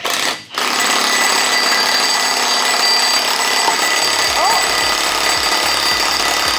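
Impact wrench hammering continuously, driving a puller to draw a stuck crankshaft pulley off its crank, with a brief break about half a second in.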